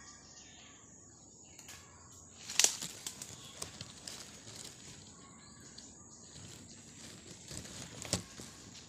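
Dry grass stems and twigs rustling and crackling close to the microphone as they are pushed aside. One sharp crack about two and a half seconds in, and a few smaller cracks near the end.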